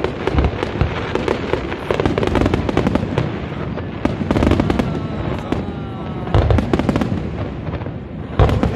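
Fireworks display: aerial shells bursting in a dense, continuous run of bangs and crackles, with heavier booms about six seconds and eight and a half seconds in.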